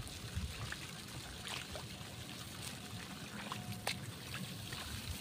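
Water trickling steadily in a flooded rice paddy, with scattered light clicks and rustles.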